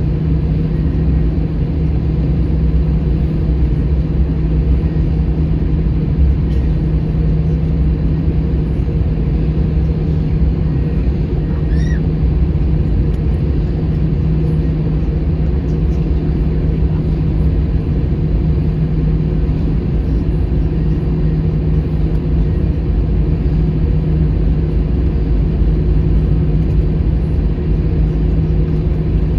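Airbus A321 jet engines at idle, heard from inside the cabin while taxiing: a steady low rumble with a constant low hum.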